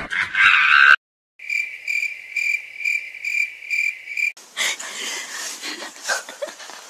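Cricket chirping: one steady high-pitched trill that pulses a little over twice a second for about three seconds, cut off abruptly and followed by soft rustling with scattered clicks.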